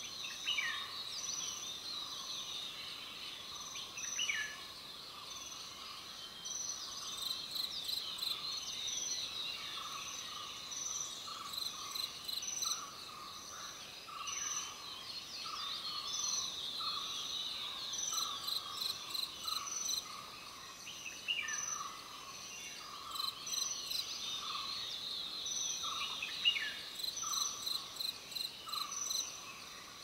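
Forest ambience: insects calling in a repeating pulse about once a second, with bird twittering and a few short falling whistles from other birds.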